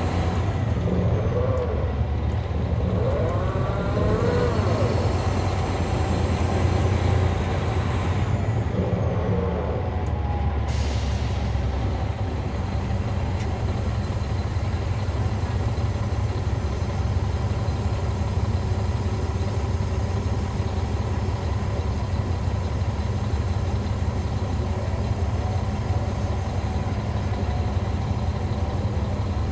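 Caterpillar C13 ACERT diesel engine of a 2009 NABI 40-foot transit bus running steadily, heard from the rear seats inside the bus. A brief hiss comes about eleven seconds in.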